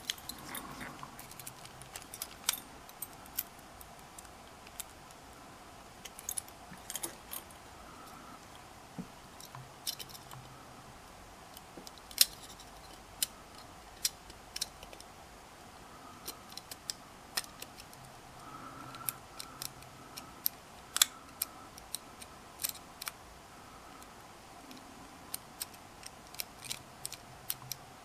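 Steel single pick and tension wrench working in a Brinks padlock's pin-tumbler keyway: irregular small metallic clicks and scrapes as the pins are raked and set, the lock not yet open.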